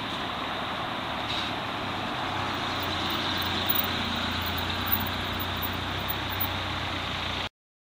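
Steady running noise of a moving vehicle heard from on board, with a low hum growing stronger a couple of seconds in and a few faint clicks. The sound cuts off suddenly near the end.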